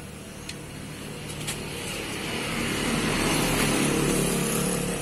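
A road vehicle passing by on the street: a noisy rush that swells, is loudest about three to four seconds in, and then starts to fade.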